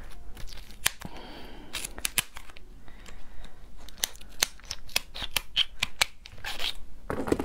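Hard shell of a raw slipper lobster cracking and snapping as fingers pry at it, heard as a run of sharp clicks and crackles. The shell is too hard to open easily by hand.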